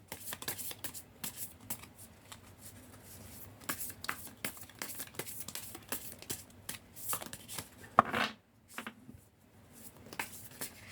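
Tarot cards being shuffled by hand: a run of quick, soft card riffles and taps, with a brief murmur of a voice about eight seconds in.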